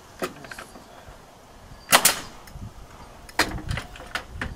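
Pneumatic nail gun firing nails through vinyl J-channel trim into a shed wall: two sharp shots about a second and a half apart, each with a quick second crack, after a small click near the start.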